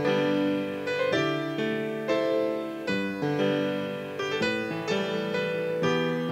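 Piano music playing slow chords, a new chord about once a second, each ringing and fading.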